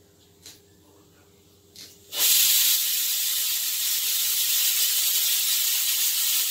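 Pressure cooker whistling: a loud steady hiss of steam that starts suddenly about two seconds in, the sign that the jackfruit inside has cooked under pressure.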